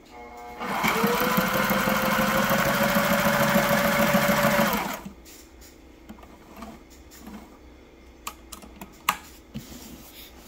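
Sailrite LSZ-1 sewing machine stitching through canvas in a single run of about four seconds. Its motor whine rises as it speeds up, holds steady, then stops. This is a test seam to check the thread tension just adjusted after the repair. A few light clicks from handling the fabric follow.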